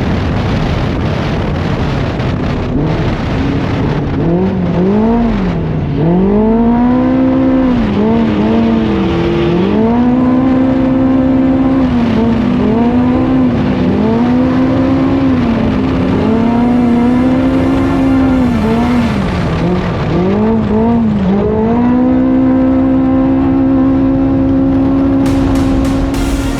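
Side-by-side race car's engine held at high revs. From about four seconds in, the revs dip and climb back again and again as the throttle is lifted and reapplied, then hold steady for the last few seconds.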